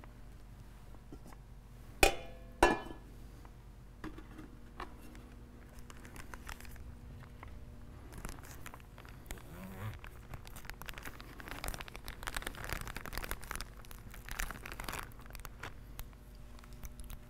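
Communion bread being broken: two sharp snaps close together, then a few lighter clicks and a long stretch of crinkling and crunching as the bread is handled.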